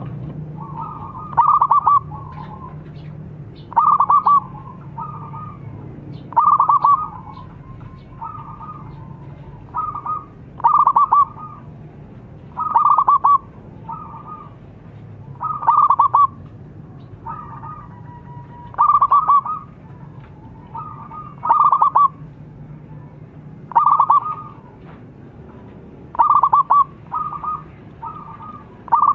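Zebra dove (perkutut) cooing: a series of loud, multi-note coo phrases, one every two to three seconds, over a steady low hum.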